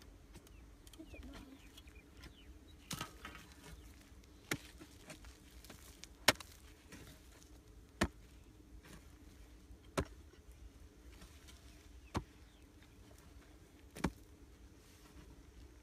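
Long-handled hoe striking hard, dry earth while digging out a hole, about seven sharp blows at a steady pace of roughly one every two seconds; the blow about six seconds in is the loudest.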